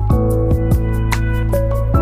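Soft instrumental background music with held tones, crossed by a few sharp, irregular taps of a knife on a wooden chopping board.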